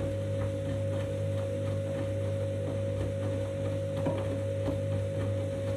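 Candy washing machine running its 90-degree main wash: a steady motor hum with a constant whine over it, and light irregular clicking as the drum turns.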